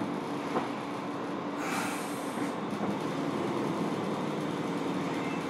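Steady rumble and hum of a Fukuoka City Subway 1000N series car, heard from inside the cabin, with a brief hiss about two seconds in.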